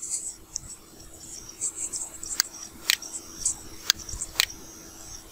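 Four sharp clicks in two pairs, each pair about half a second apart, with fainter high ticks between them over a low steady hum.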